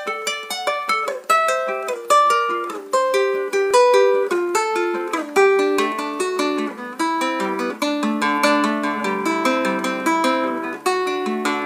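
Nylon-string classical guitar played solo, picking a quick run of single notes and chord tones as the instrumental intro of a song, with lower bass notes joining about halfway through.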